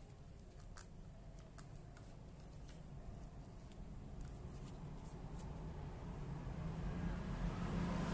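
Scattered small clicks and taps of a tripod's plastic locks and fittings being handled, over a low hum. Toward the end the low rumble of a passing vehicle grows steadily louder.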